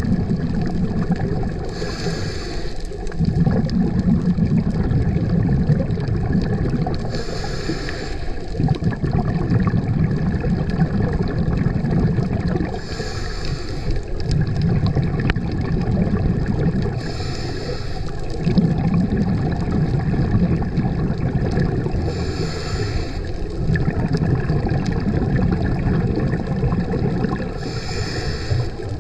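Scuba diver breathing through a regulator underwater: a short hiss of inhalation about every five seconds, six times, each followed by a few seconds of low rumbling bubbles from the exhalation.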